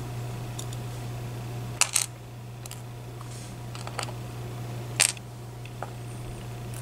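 Small sharp metallic clicks and taps from a Medeco Biaxial lock cylinder being taken apart, a small tool working in its pin chambers to remove the pins. The loudest are a quick pair about two seconds in and a single click about five seconds in, with a few lighter ones between.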